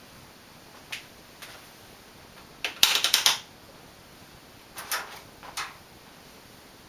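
A ceiling fan coasting down after being switched off, barely audible over a faint steady background. Scattered sharp clicks, with a quick rattle of several clicks about three seconds in that is the loudest sound, and a few more near the end.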